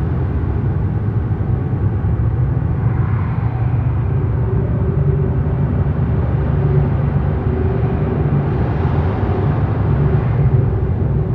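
Dark ambient noise drone: a dense, steady low rumble with a grainy hiss above it, and a faint held tone joining about four seconds in.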